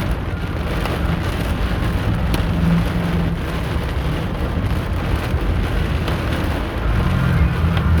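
Heavy rain drumming on a moving car, heard from inside the cabin, with a low rumble of the car and road underneath.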